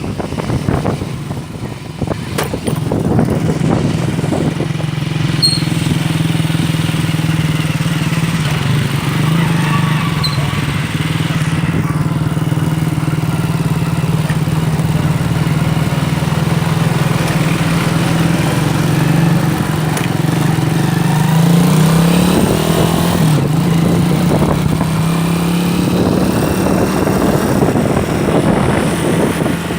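An engine running at a steady speed, with a brief rise in pitch about two-thirds of the way through.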